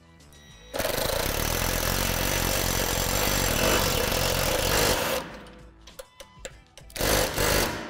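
Ridgid cordless impact driver running in one long burst of about four seconds, then a short second burst near the end, driving a bolt that fixes the handle to the pole.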